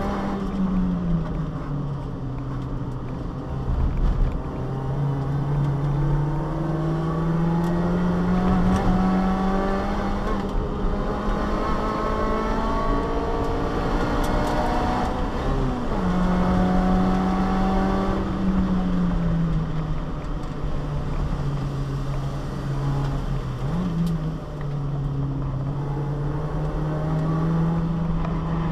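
Subaru Vivio's 658 cc four-cylinder engine, heard from inside the cabin while the car is driven hard on a track. The revs climb slowly through the gears and drop back several times at shifts and lifts. A sharp knock comes about four seconds in.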